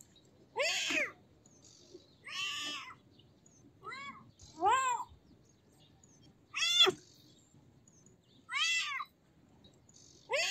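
A kitten meowing over and over: about six high, short meows that each rise and fall in pitch, one every second and a half to two seconds, one of them shorter and fainter.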